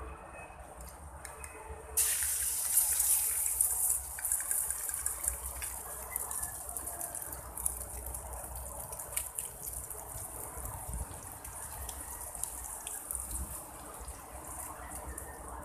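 Beaten egg with malunggay and tomato hitting hot oil in a wok, breaking into a loud sizzle about two seconds in, then settling to a steady sizzle with scattered crackles as it fries.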